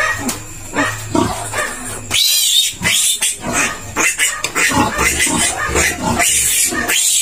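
Young piglet squealing repeatedly while held down for tail docking and spraying of the tail stump, with shorter, quieter cries at first and long, loud, high squeals from about two seconds in.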